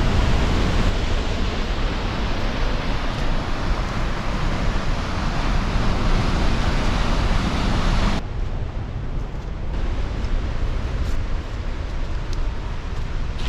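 Steady rushing of a waterfall's water. About eight seconds in it cuts suddenly to a softer, duller rush.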